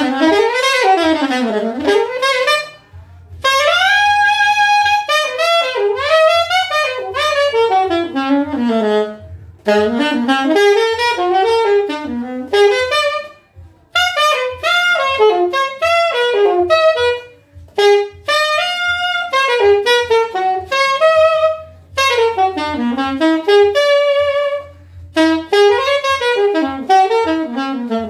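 Saxophone playing fast jazz runs in phrases of a few seconds, each broken by a short pause for breath; the horn's raw sound, without effects.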